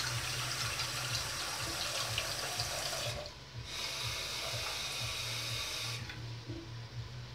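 Kitchen tap running water into a pot to fill it with pasta water. The flow stops briefly about three seconds in, runs again, then is turned off about six seconds in.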